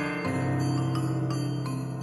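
Instrumental Christmas music with jingle bells ringing in a steady rhythm over held chords.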